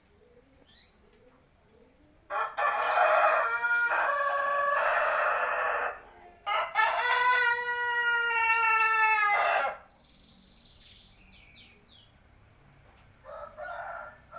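A seven-month-old native Indonesian (kampung) rooster crowing twice, each crow about three and a half seconds long, then a short, quieter call near the end.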